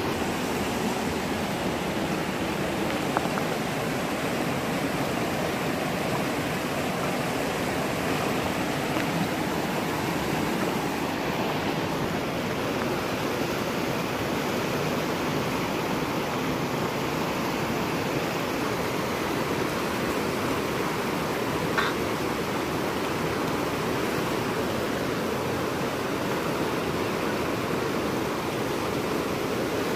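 Fast-flowing river rushing over rocks: a steady, even rush of water, with a single brief click about two-thirds of the way through.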